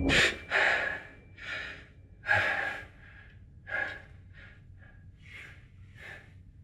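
A young man gasping and breathing hard as he wakes with a start in bed: about nine sharp breaths in and out, the loudest in the first three seconds, then shorter and quieter ones.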